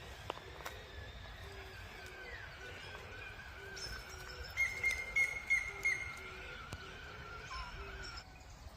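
Wild birds calling in woodland: a thin high note held throughout, short low notes repeating every half second or so, and a louder run of sharp chirps about halfway through. The sound drops off suddenly shortly before the end.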